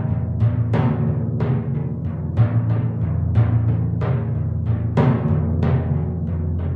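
Four pedal timpani played solo with mallets: an even run of strikes, about three a second, each drum's low pitch ringing on under the next stroke.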